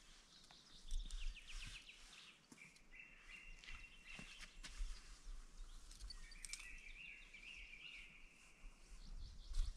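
Small songbirds singing: quick repeated trills and buzzy held notes, with a couple of low rumbles, about a second in and near the end.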